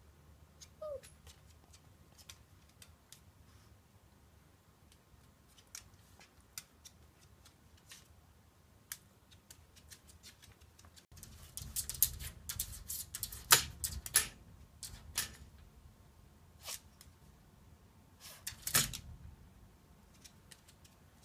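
A small dog playing with a strawberry toy on a hardwood floor: scattered taps and clicks of claws and the toy on the boards, with a busier stretch of knocks and scrabbling about halfway through and another knock near the end.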